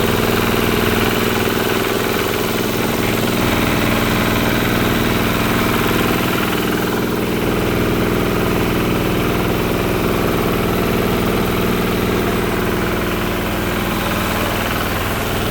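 High-capacity mini rice milling machine running steadily, a constant mechanical drone with several unchanging tones and no change in speed.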